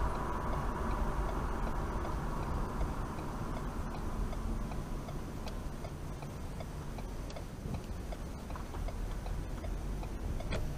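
Car turn-signal indicator ticking steadily, a few ticks a second, starting about four seconds in as the car turns right, heard from inside the cabin over low road rumble that eases as the car slows.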